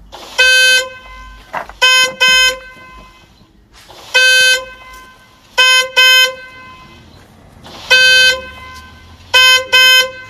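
Car horn sounding loudly in a regular repeating pattern: one long blast followed by two short ones, three times over.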